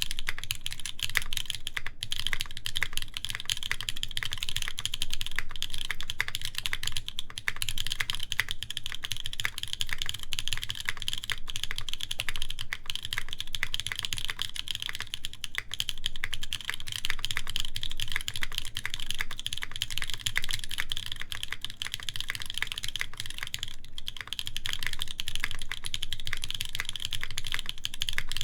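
Continuous fast typing on a mechanical keyboard with lubed, broken-in Kailh Cream switches in an aluminium plate under GMK keycaps, a dense run of keystroke clacks.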